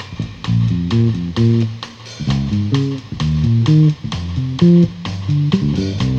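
Jazz combo playing: guitar and electric bass chords in a choppy, rhythmic figure over a drum kit keeping steady time.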